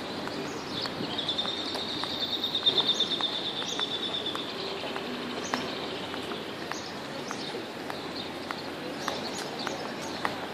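A songbird sings one rapid, high trill starting about a second in and lasting some three and a half seconds. Faint footsteps tick and steady background noise run under it.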